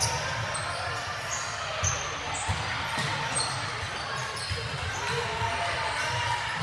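Basketball being dribbled on a gym court, with a few thuds and short high sneaker squeaks, echoing in a large hall.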